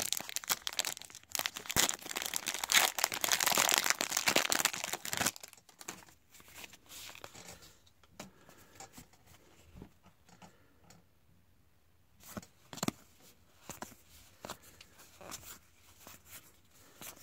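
Trading card pack wrapper torn open and crinkled, loud and crackly for about the first five seconds. Then quieter, with scattered soft clicks and rustles as the cards are slid and flipped through by hand.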